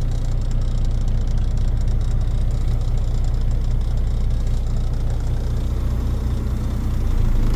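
Diesel engine idling steadily in a 2007 Volvo VNL 780 truck, a low even hum heard from inside the sleeper cab.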